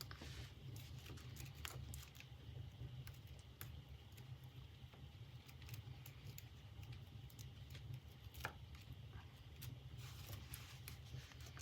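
Faint scattered clicks and light taps of a purse clasp frame and fabric being handled while the fabric is glued into the frame, over a steady low hum.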